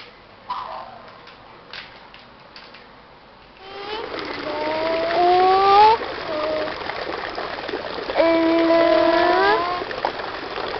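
A few light clicks as plastic letters are handled on a letter board. Then a steady rushing noise sets in, and over it a voice twice makes a long sound that slides up in pitch.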